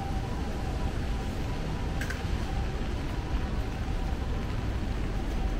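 Steady city street noise: a low rumble with a hiss over it, and one brief high chirp about two seconds in.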